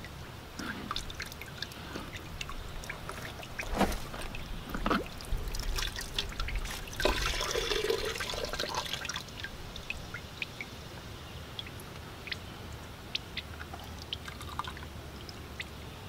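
Fuel filter bowl being worked off a Ford 1910 diesel tractor engine: a couple of metal clunks, then old, dirty diesel pouring out for about two seconds around seven seconds in, followed by scattered drips.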